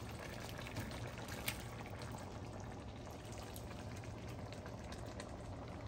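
Pot of collard greens simmering on the stove, a soft, steady bubbling hiss with a couple of faint ticks early on.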